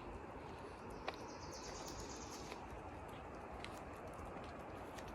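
Forest ambience: a steady hiss of background noise, with a faint, thin, high bird call about a second in lasting a second or so, and a couple of light clicks.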